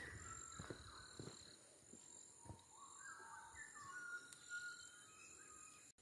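Birds singing faintly, a string of short clear whistled notes and brief glides, over a steady high insect drone. A few footsteps sound in the first second or so.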